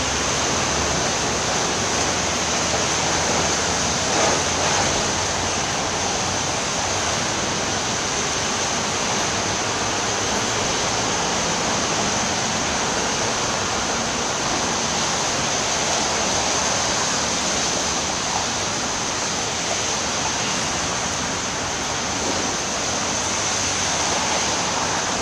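Steady, even hiss with no speech, unchanging throughout, with one faint small bump about four seconds in.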